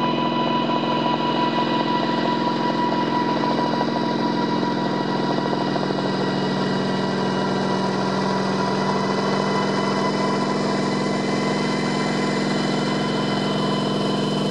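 Kamov Ka-26 helicopter's twin radial piston engines and coaxial rotors running steadily in a low hover as it creeps closer: an even, loud engine-and-rotor drone with a high whine running through it.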